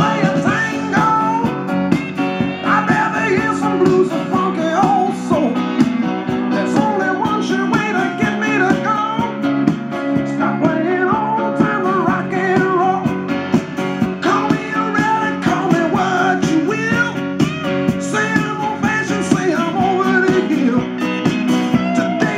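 A song with guitar and singing, played through a Marantz 2385 stereo receiver and its loudspeakers.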